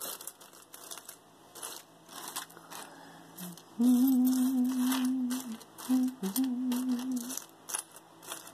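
Metal and glass earrings clicking and clinking against each other as a pile of jewelry is picked through. About four seconds in, a woman hums two steady held notes lasting a few seconds, with a short break between them.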